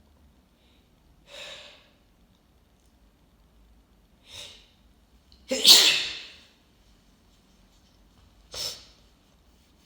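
Sneezing from a person with a congested head cold who is inducing the sneezes. There is one loud sneeze about halfway through, between shorter, quieter breathy sounds, and a sharp short burst near the end.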